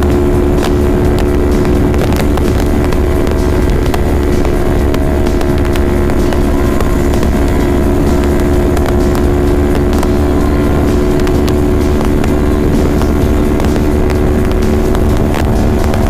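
Motorcycle engine running at a steady high cruising speed, its pitch holding constant, mixed with heavy wind rush on the handlebar-mounted microphone.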